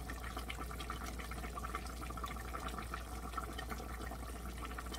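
Pork kimchi stew boiling in a pot on a gas stove: steady bubbling, many small pops over a soft hiss.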